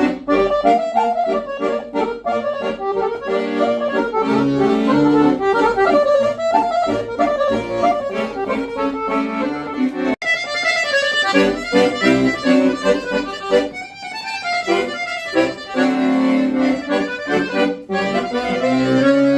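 Fisitalia 41.45 TC piano accordion playing a tune, a melody over sustained chords, with a brief break in the sound about ten seconds in.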